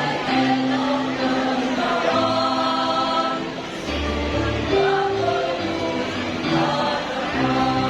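A choir singing a hymn in several parts, moving through long held chords.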